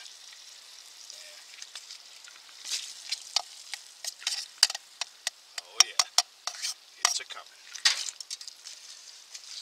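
Asparagus sizzling in butter in a stainless steel canteen cup, with a steady hiss and many sharp metal clinks from about three seconds in as the cup is lifted, shaken and stirred.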